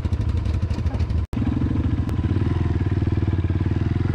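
ATV engine running with a steady pulsing exhaust note. The sound cuts out for an instant about a second in, then the engine runs on steadily as the quad rides along.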